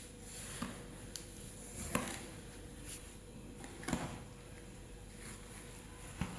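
A few separate soft knocks, spaced one to two seconds apart, with fainter clicks between them, over a faint steady hum.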